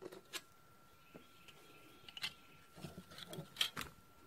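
Faint, scattered clicks and taps of small metal pieces, brass shim stock and hand tools, being picked up and set down on a workbench, with a few sharper clicks about three and a half seconds in.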